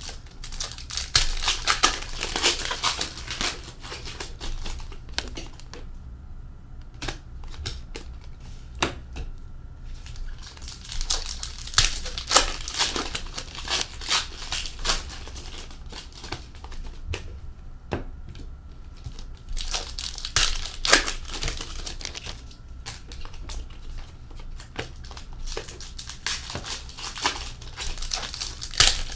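Upper Deck Series 2 hockey card packs being torn open by hand, the wrappers crinkling and crumpling in several bursts with quieter stretches between, as the cards are pulled out and handled.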